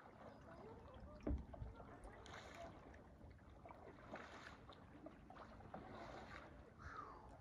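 Kayak paddle strokes in calm river water, a faint splash and drip about every two seconds, with a single knock about a second in.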